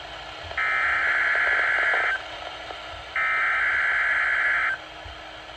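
Two bursts of NOAA Weather Radio SAME (Specific Area Message Encoding) header data, each a harsh digital screech about a second and a half long with about a second of radio hiss between them. This is the coded EAS header announcing a Required Weekly Test.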